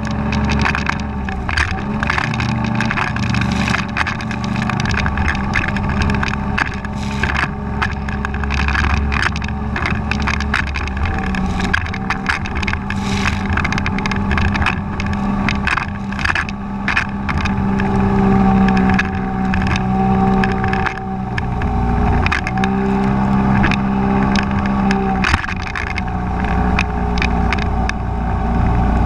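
A small boat's outboard engine running hard at speed, with many short knocks and splashes as the hull slams through the chop and spray. The engine note shifts a little past the middle.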